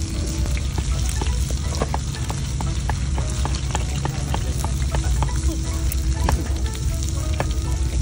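Okonomiyaki mix of cabbage and cheese sizzling in a hot griddle pan over a wood fire. Many short clicks and scrapes run through it as a metal spatula works the mix against the pan.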